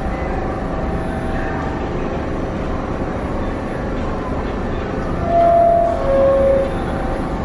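New York City subway train standing at the platform with its doors open, its motors and ventilation giving a steady hum. About five seconds in, the two-note falling door-closing chime sounds.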